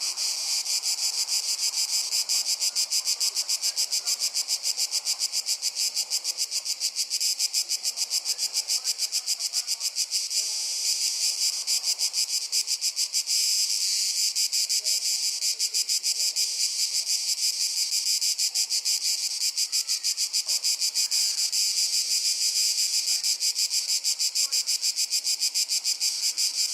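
Dense chorus of singing insects, typical of crickets: a loud, high-pitched trill that pulses rapidly and evenly without a break.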